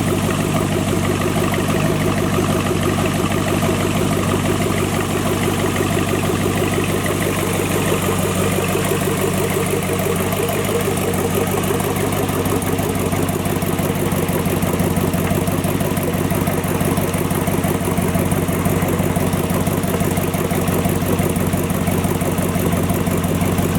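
Supercharged 6.2 L LSA V8 engine from a 2012 Camaro ZL1 idling steadily, with no revving.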